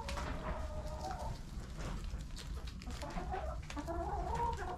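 Hens clucking in many short, soft calls while they peck at a treat of green peas, with small sharp ticks among the calls.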